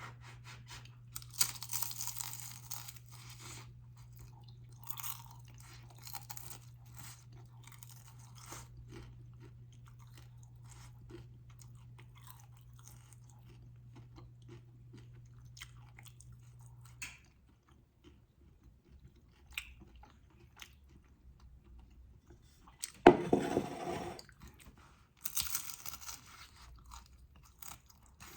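Crunchy bites and chewing of a crisp fried snack, most likely turon, in separate bursts with the loudest crunch about 23 seconds in. A steady low hum runs under the first 17 seconds and then stops.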